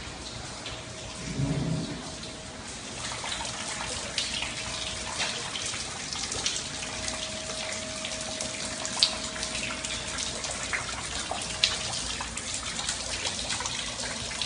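Rainwater leaking through a ceiling and splashing into a flooded room: a steady run of water with scattered sharp drips, two of them louder in the second half. A faint steady tone comes and goes in the background.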